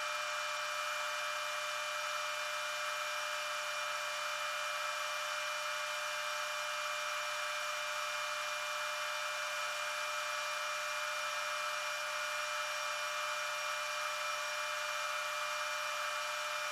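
Handheld gas torch flame hissing steadily, with a few faint steady tones, as it heats a small 4140 steel tensile specimen to temper it.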